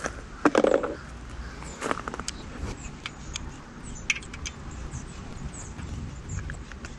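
Irregular small clicks and metal clinks of a Torx key and screws as the screws holding an e-bike's battery plate are undone.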